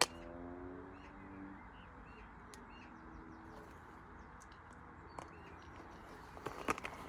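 Faint outdoor background with small birds chirping. There is a sharp click right at the start and a few light clicks near the end.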